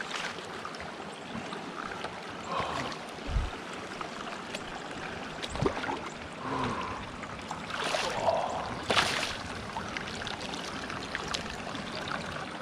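Water splashing and trickling around a kayak, with a dull knock about a third of the way in and a few sharper splashes later on, the loudest near the three-quarter mark.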